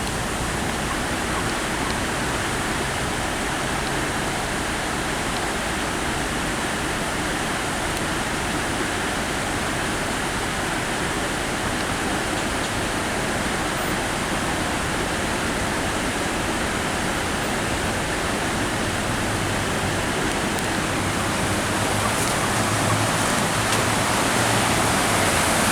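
Steady hiss and rush of water, even throughout and slightly louder near the end, with a faint low hum of engines now and then.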